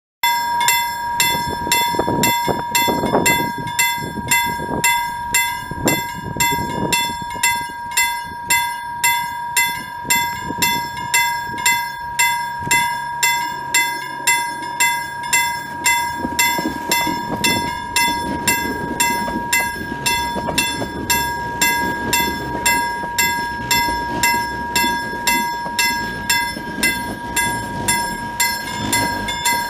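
Level crossing warning bell ringing steadily at a little under two strokes a second. Under it, a CAF light-rail tram approaches and runs past, its rumble growing louder in the second half.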